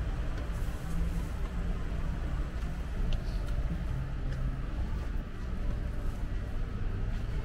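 Shopping cart rolling over a store floor: a steady low rumble from its wheels, with a few light rattles.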